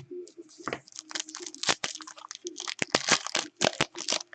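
Foil wrapper of a trading-card pack crinkling and crackling as it is handled and torn open, in quick irregular bursts.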